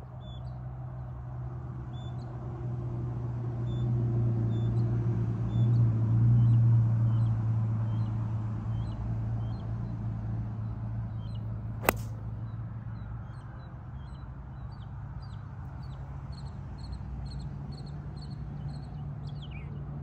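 A 3-iron strikes a golf ball off the tee with one sharp crack about twelve seconds in. Around it, small birds chirp over and over, over a low steady drone that swells in the middle and fades.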